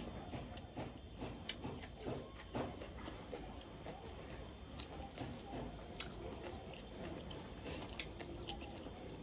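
A person chewing and biting food close to the microphone, with irregular soft clicks and wet mouth smacks.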